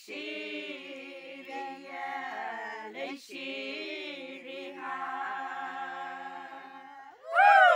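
Group of women singing unaccompanied, in long held notes that slide gently in pitch, with a brief break in the middle. Near the end a louder voice rises and then falls steeply in pitch, like a cry.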